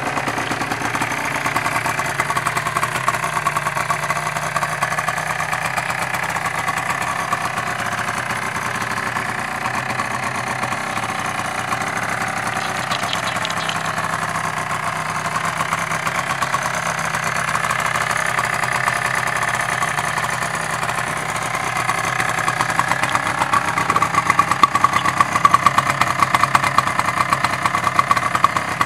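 Small single-cylinder engine of a 2005 Polaris Predator 90 youth ATV idling steadily. It grows louder and rougher in the last several seconds.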